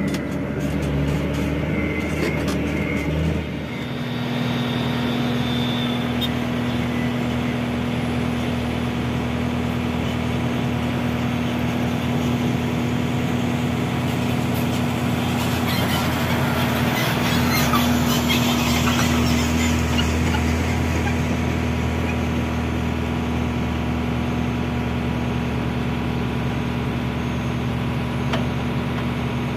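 Heavy diesel engines running steadily: first heard from inside a dump truck's cab, then, after a cut, a dump truck and a Sany crawler excavator working on a dirt site. There is a noisier, slightly louder stretch for a few seconds about halfway through.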